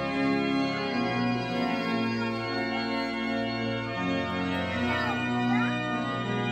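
Church organ playing slow sustained chords, the notes shifting every second or two.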